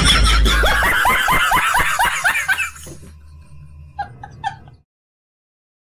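Rapid burst of laughter, about five falling 'ha' sounds a second, fading out over about three seconds. A few short vocal sounds follow about four seconds in, then the sound cuts off suddenly.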